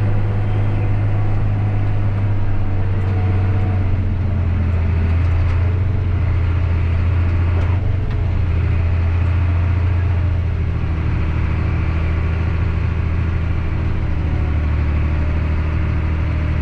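Farm tractor's diesel engine running steadily under load, heard from inside the cab as it pulls a grain cart across the field: a constant low drone.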